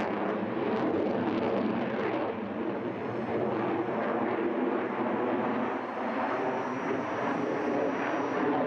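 Jet noise from a Mikoyan MiG-35 fighter's twin Klimov RD-33MK turbofan engines as it flies overhead, a steady loud rushing sound.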